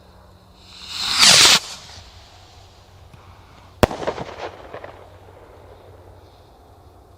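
Stick rocket launching with a rising whoosh that cuts off after about a second. About two seconds later it bursts with a single sharp bang, followed by a short rattle of smaller pops.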